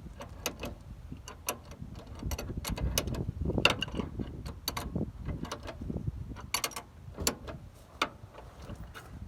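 Irregular metallic clicks and knocks of hand tools and metal parts being worked, with a cluster of louder knocks a little past the middle.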